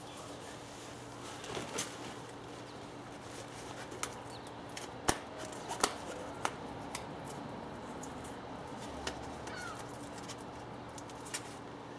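Fabric wardrobe cover rustling and flapping as it is handled, with scattered light clicks and taps from its straps and frame, the sharpest about five seconds in.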